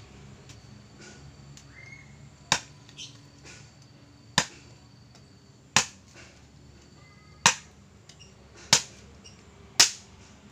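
Golok tebas machete with a 25 cm spring-steel blade chopping into a wooden branch. Six sharp chops land one every second or two.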